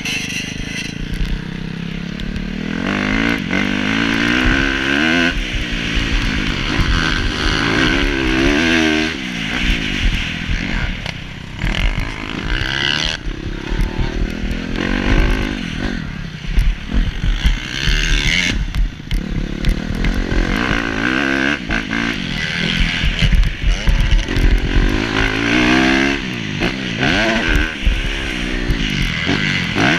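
Motocross dirt bike engine revving up and dropping back over and over, its pitch rising and falling every few seconds. Heard from the rider's helmet-mounted camera.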